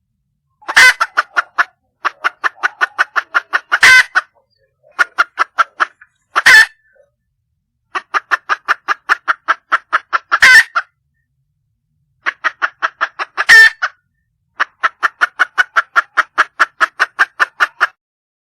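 Wild hen (female red junglefowl) calling: about six runs of rapid clucks, around five a second, each run lasting one to three seconds, with a few much louder sharp notes among them. This is the hen's call to draw a male.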